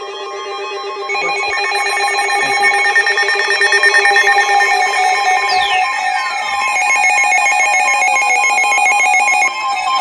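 Several weather-alert radios sounding their tornado-warning alarms together: overlapping electronic beeping and warbling alert tones, joined about six seconds in by repeated falling siren-like sweeps.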